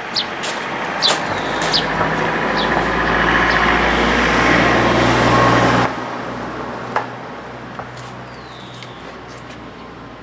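A motor vehicle's engine, growing steadily louder for about six seconds and then dropping away suddenly, leaving a fainter hum. A few short bird chirps come near the start.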